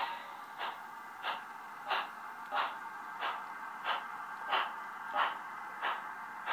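Simulated steam-locomotive exhaust chuffs from the DCC sound decoder and Hi-Bass speaker of a Bachmann On30 4-6-0 model, close to the standard SoundTraxx Tsunami steam sound. The chuffs come in a steady beat of about three every two seconds over a continuous hiss.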